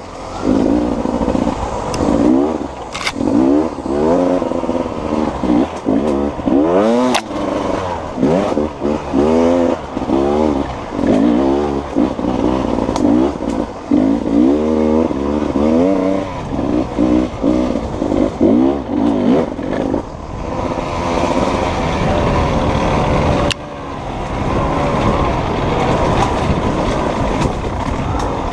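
Beta two-stroke enduro motorcycle being ridden, its engine revving up and down over and over as the throttle opens and closes about every second. For a few seconds near the end the revs hold steadier before dropping off sharply and picking up again.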